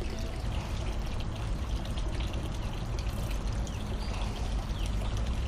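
Steady trickling and lapping of water at the seawall, over a low, even rumble.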